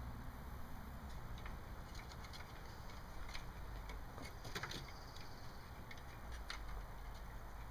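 A Siamese cat's claws scratching and clicking on a wooden lattice gate as it climbs. There is a scatter of short, light scrapes, loudest about four and a half seconds in, over a low steady rumble.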